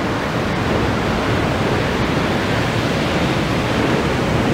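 New York City subway train rolling slowly into the terminal platform, a steady noise of wheels running on the rails.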